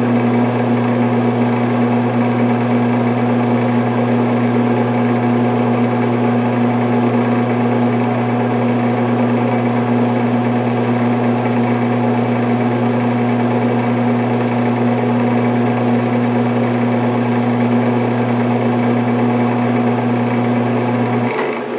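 Ventilation fan running steadily: a strong low electric hum under an even rushing air noise. Near the end the hum cuts off suddenly and the sound begins to fade, as the fan is switched off and winds down.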